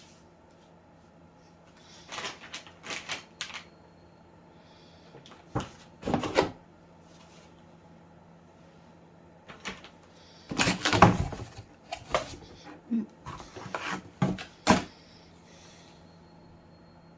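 Irregular bursts of handling noise, rustling with knocks and clicks, as a crossbow and its packaging are unpacked and handled; the loudest cluster comes about eleven seconds in.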